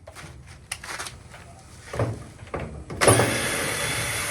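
Scattered clicks and knocks of handling the dryer, then a small electric motor such as a cordless drill or driver running steadily for about a second and a half, starting suddenly about three seconds in.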